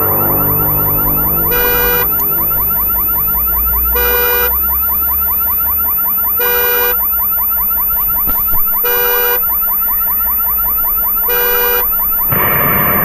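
Car alarm sounding: a fast, repeating warbling chirp, cut by a short piercing beep about every two and a half seconds, five beeps in all. A low engine rumble runs underneath in the first half. Near the end the alarm stops and traffic noise takes over.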